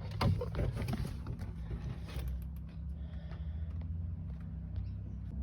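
Light clicks and knocks of a metal lifter-arm mounting plate and its screws being handled into place, most of them in the first second and a half, over a low steady hum.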